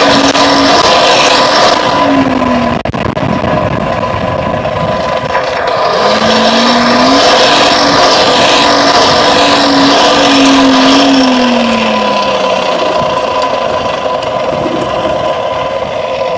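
A forge running steadily while steel heats toward welding heat. Under it a humming tone falls away about two seconds in, rises again around six seconds, holds, and falls away by about twelve seconds.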